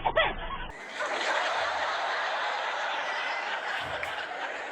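A woman laughing in short repeated bursts, cut off about 0.7 s in by a crowd laughing: a dense, steady wash of many laughing voices.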